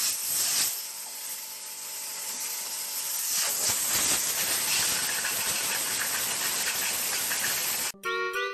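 Steady rushing hiss of air from a running portable air conditioner, with a faint low hum underneath for the first few seconds, growing a little louder about three seconds in. It cuts off near the end, where bright chiming music starts.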